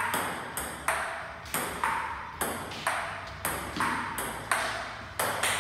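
Table tennis rally: the ball clicking off the paddles and bouncing on the table, in a steady back-and-forth of about two hits a second.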